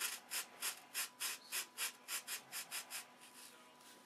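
Sandpaper wrapped around a thin hardwood stick rubbed back and forth in quick strokes, about four a second, cutting a hinge slot into the trailing edge of a wooden model-aircraft flap. The strokes stop about three seconds in.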